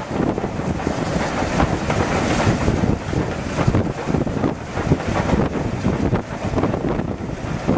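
Wind buffeting the microphone over the running noise of a steam-hauled train drifting down a gradient, with steady rumble and irregular knocks from the wheels and coaches on the track.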